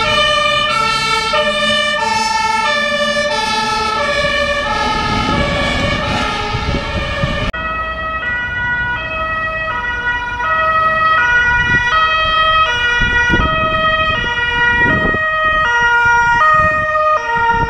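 Two-tone sirens of German fire-service vehicles on an emergency run, switching steadily back and forth between a high and a low note, with traffic noise underneath. About seven and a half seconds in the sound changes abruptly to a second siren of the same two-note kind, which grows louder toward the end.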